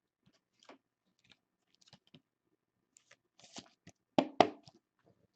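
Trading cards being handled: faint scattered rustling and light clicks, with two sharper clicks a little after four seconds in.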